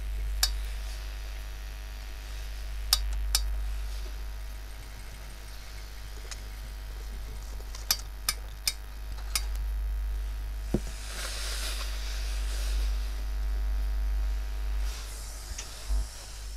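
Hose-fed steam iron pressing cloth: a few sharp clicks in the first ten seconds, then a hiss of steam lasting about two seconds and a shorter one near the end, over a steady low hum.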